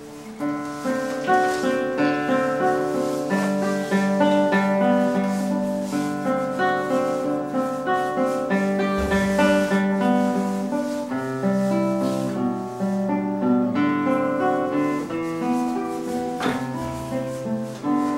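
Classical guitar played solo: a continuous flow of plucked notes, with low bass notes ringing under a higher melody.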